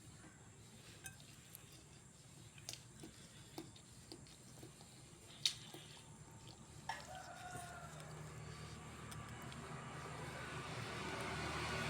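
A few faint sharp clicks, then an animal call about seven seconds in, followed by a steady noise that grows louder towards the end.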